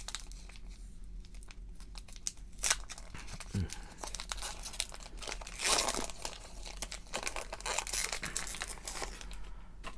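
Foil booster-pack wrapper crinkling and tearing as a trading-card pack is ripped open by hand, with a run of sharp crackles and a couple of longer rips, one about a third of the way in and one past the middle.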